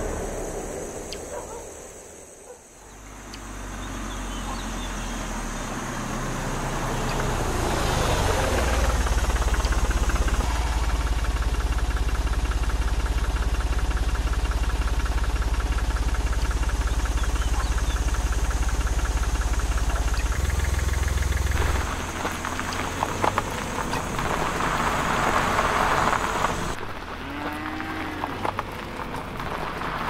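Motor vehicle engine running, a sound effect laid over a miniature scene. It builds over the first few seconds, holds a steady low rumble with an even pulsing for about ten seconds, then drops away about two-thirds of the way through, leaving scattered clicks and knocks.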